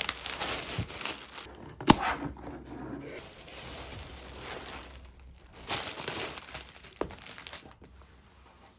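Thin plastic packaging crinkling and rustling as it is opened and handled, with one sharp snap about two seconds in. It comes in uneven bursts, with another loud rustle around six seconds.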